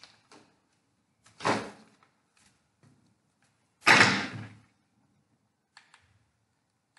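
Two short, loud rustling knocks, about two and a half seconds apart, from Caucasian fir branches being handled and set on the work table, with a few faint ticks between them.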